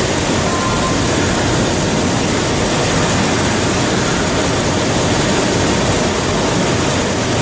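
DAMA HDC-2020 high-speed drilling center surface milling: a loud, steady cutting noise with a constant high-pitched whine.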